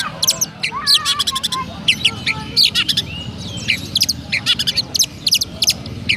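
Oriental magpie-robin singing a fast, continuous run of sharp chirps mixed with short warbled whistles, its song mimicking the chirping of a tree sparrow.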